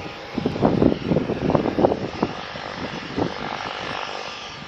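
De Havilland Canada DHC-6-300 Twin Otter's two PT6A turboprop engines and propellers at takeoff power during the takeoff roll. The loudness surges and falls back unevenly.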